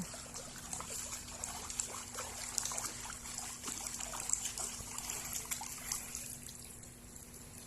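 Water trickling faintly, slowly fading toward the end.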